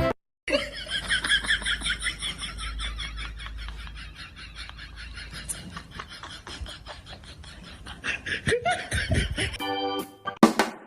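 Laughter: a run of rapid, high-pitched giggling pulses, loudest over the first few seconds and then fading, with a short burst of music near the end.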